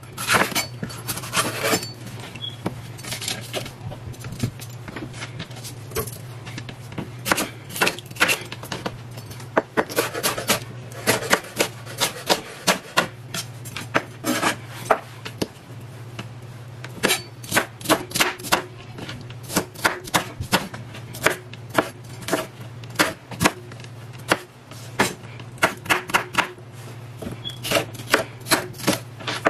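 Kitchen knife slicing peeled mangoes held in the hand over a plastic cutting board: a run of sharp, irregular cutting clicks and knocks, often several in quick succession, over a steady low hum.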